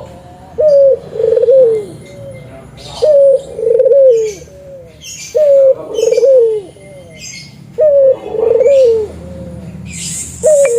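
Spotted dove cooing its repeated phrase about five times, one every two and a half seconds: a short note, a rolling note, then a falling note. Higher chirps of small birds sound over it.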